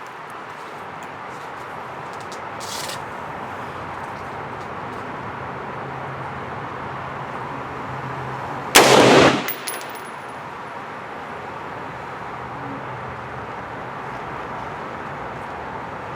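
A single AR-15 rifle shot about nine seconds in, loud and sudden, with a brief echo trailing off over the following second, over a steady background hiss.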